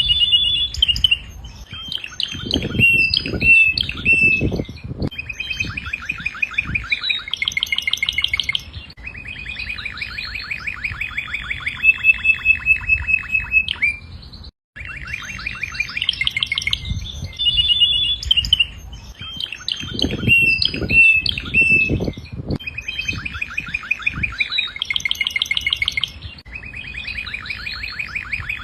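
Canary singing in long, rapid trills and rolling phrases, with some low knocks beneath the song. The song cuts out for a moment about halfway, then the same sequence repeats.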